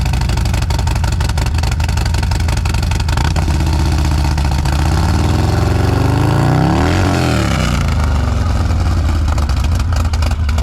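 Harley-Davidson V-twin running loud through an aftermarket exhaust, a steady low engine note, with a brief rise and fall in pitch about seven seconds in.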